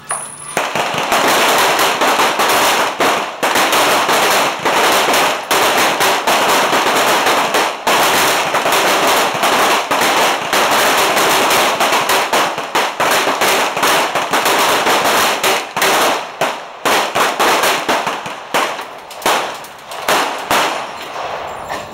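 Pistol gunfire from many shooters firing at once along a match firing line: a dense, overlapping stream of sharp shots that thins to scattered single shots near the end.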